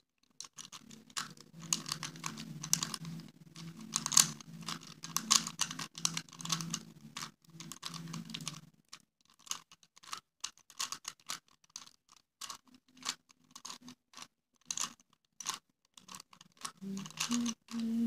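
3x3 Rubik's cube being turned over and over by hand: quick, irregular clacks of the plastic layers snapping round as the same two-turn sequence (up, right) is repeated. A low steady hum sits under the clicking for the first half, stopping a little before the middle.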